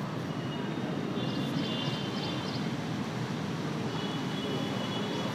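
Steady background noise with no speech. Faint high thin tones come in twice, about a second in and again near the end.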